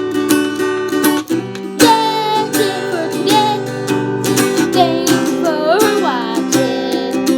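Acoustic guitar strummed, with a voice singing a melody over it from about two seconds in.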